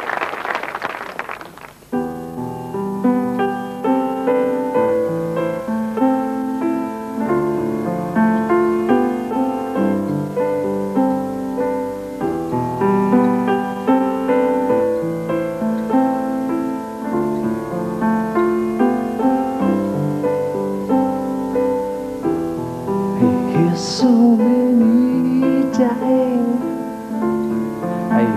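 Audience applause dies away about two seconds in, then a solo piano plays a song intro with a steady run of notes. A man's singing voice comes in over the piano near the end.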